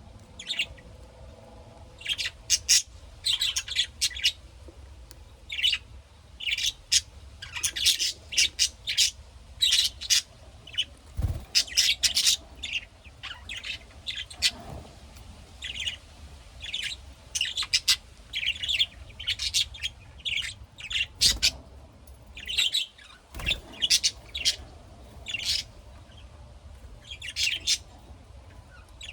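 Pet lovebirds chirping and squawking in short, shrill calls that come in quick clusters, with a few soft low bumps in between.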